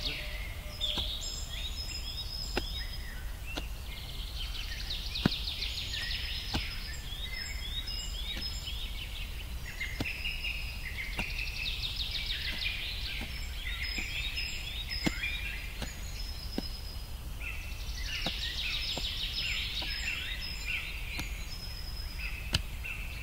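A hoe chopping into grassy soil, with irregular dull strikes every second or two and one sharper strike about five seconds in. Over it a songbird sings a quick run of short notes that comes back every few seconds.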